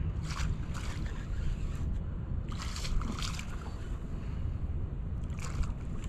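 Steady wind noise on the microphone over a boat on choppy water, with three short splashes of water sloshing against the hull: about half a second in, around three seconds in, and near the end.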